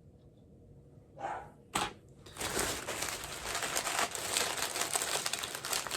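Crinkling of mystery pin blind-bag packaging being handled and opened: dense crackling starting about two seconds in, after a short breathy rush and a click.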